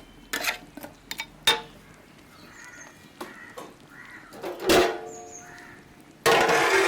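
A few sharp metallic clicks of a lid and utensils on a cooking pot, then crows cawing, with a loud harsh caw about two-thirds through and another loud run of cawing near the end.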